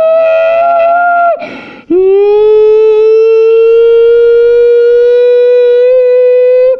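A person's voice imitating a tornado siren through a cardboard toilet-paper tube, loud. A held wail falls away about a second in, then comes a quick breath, and a new wail slides up and holds steady until another breath at the end. It echoes in a small bathroom.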